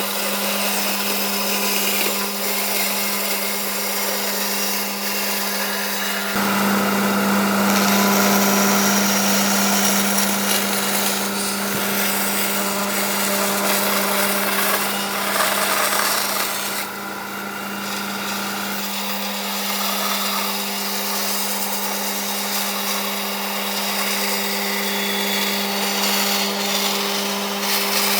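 Electric power tool motor running steadily with a constant hum and a rasping working noise. It steps up to a fuller, heavier sound about six seconds in and drops back near nineteen seconds.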